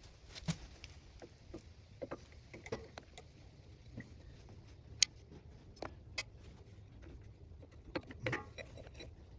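Scattered light clicks, taps and knocks of a camera tripod being set up and handled, with one sharp click about five seconds in and a short clatter near the end.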